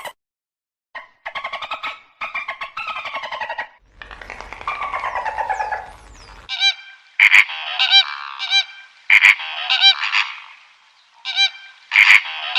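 Repeated animal calls in several runs with short pauses between, the later ones loud and clearly pitched.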